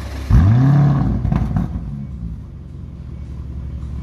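Lamborghini Urus's twin-turbo V8 revved once while standing still: a sudden rev that climbs and then falls back over about a second and a half, with a few sharp cracks as it drops, settling to a steady idle rumble.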